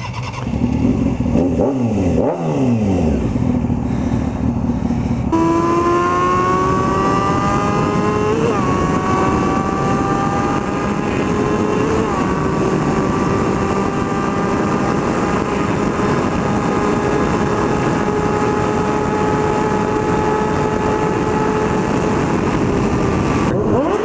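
Honda CBR600 F4i's inline-four engine through a Coffman aftermarket exhaust, at first revving up and down. About five seconds in it changes to a long, steady high-revving pull whose pitch climbs slowly, and it changes again near the end.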